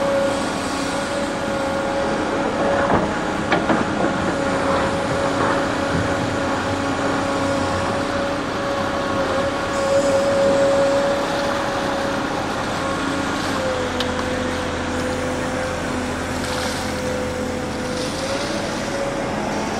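Excavator engine and hydraulics running steadily with a held whine as the bucket digs rocks and mud out from under water. The whine drops in pitch about two-thirds of the way through and rises back near the end, and a few sharp knocks come about three to four seconds in.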